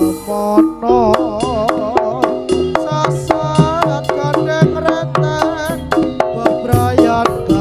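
Live jaranan gamelan music: hand drums beating a steady rhythm of strokes with struck gamelan instruments, and a melody with a strongly wavering pitch above them.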